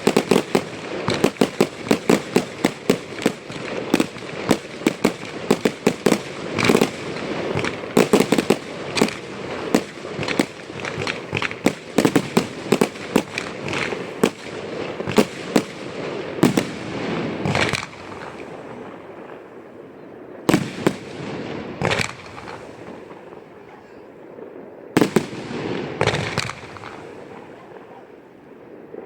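Aerial fireworks display: a dense, rapid volley of sharp bangs with crackling for about the first two-thirds, thinning out to a few separate bangs near the end.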